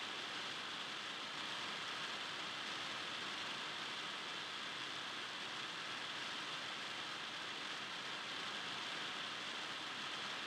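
Steady, even hiss with nothing standing out from it.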